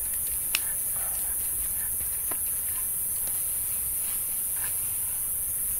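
Faint scattered clicks and rustles of hands handling plastic bags and food, over a steady high hiss and low rumble.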